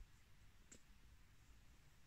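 Near silence: a faint low rumble, with one short faint click about three-quarters of a second in.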